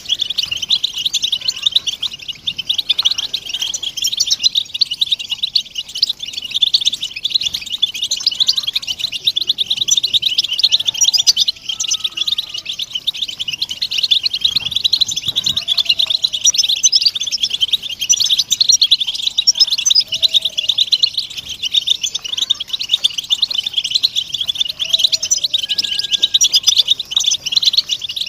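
A flock of European goldfinches of the Moroccan form twittering together, a dense unbroken mass of many overlapping high chirps and trills.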